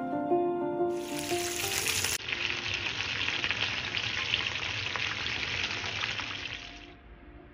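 Chicken wings deep-frying in a pan of hot oil, sizzling steadily. The frying comes in about a second in, after background music, and stops shortly before the end, when the music returns faintly.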